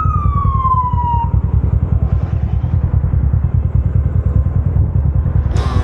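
A vehicle engine running with a steady, pulsing low rumble. In the first second a high whining tone glides down in pitch and fades out.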